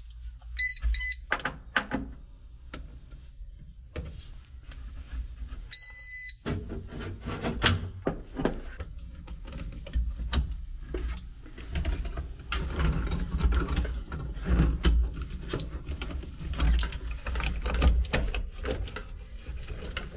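Electronic beeps: two short ones about half a second in and a longer one about six seconds in. After that come clicks and rustles of hands working among the air handler's control wiring while a relay is being changed.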